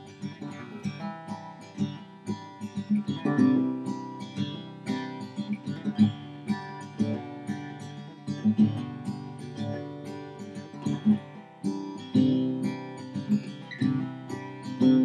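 Acoustic guitar music, a run of plucked and strummed notes.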